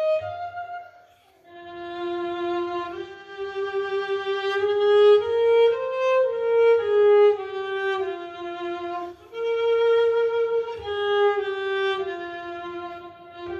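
Solo cello bowed high in its range, playing a slow melody of long held notes that slide into one another. The line breaks off briefly about a second in, then resumes.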